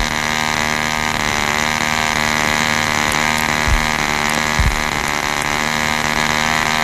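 Single-cylinder gasoline engine of a model airplane running with a steady buzz as the model takes off and flies.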